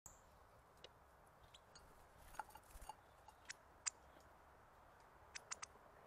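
Faint, scattered sharp clicks and ticks, about nine in all, bunched around the middle and again near the end: northern cardinals cracking seeds with their bills at a porcelain feeder dish.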